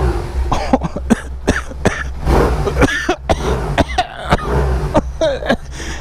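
BMW R1100S's boxer twin engine idling steadily, now running after a spark plug change on a bike that would not start. Over it a person coughs in short, irregular bursts.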